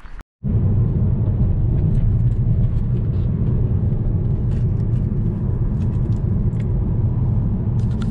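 Steady low rumble of road and engine noise inside a moving car, starting suddenly about half a second in.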